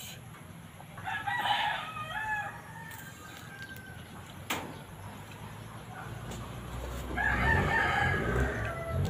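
A rooster crowing twice: one wavering crow about a second in, and a longer one near the end. A single sharp click falls between them.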